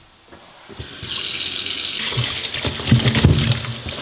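Kitchen tap turned on about a second in, water running into a stainless steel sink over celery and spring onions being rinsed by hand, with light knocks from handling the vegetables.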